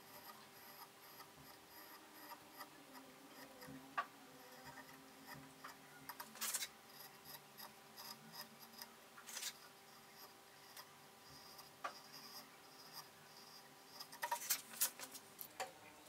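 Small hand carving tool slicing fine cuts into basswood: quiet scratchy strokes and light clicks at irregular intervals, with a quick run of cuts near the end.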